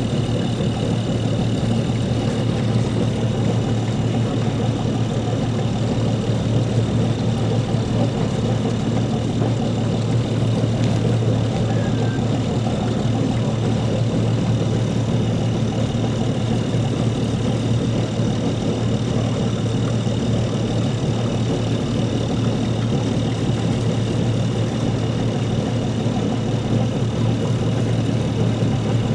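Schooner's auxiliary diesel engine running at a steady speed: a constant low drone with a faint high whine above it.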